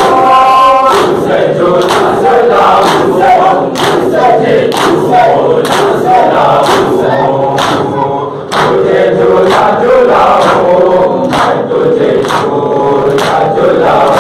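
A crowd of men chanting a noha in unison while beating their chests in matam, one hand-slap about every second.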